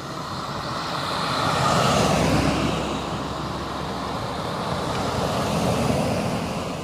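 Convoy cars driving past close by on an asphalt road, engine and tyre noise swelling and fading: a car passes about two seconds in and an SUV about six seconds in.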